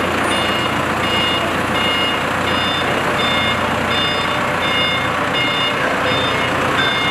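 Heli forklift's reversing alarm beeping about twice a second as the forklift backs up, over the steady running of its engine.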